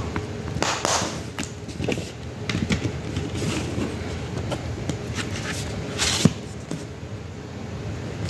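A plastic Blu-ray case and its cardboard slipcover being handled: the case is slid into the slipcover with scraping and rustling, with a sharp knock about six seconds in.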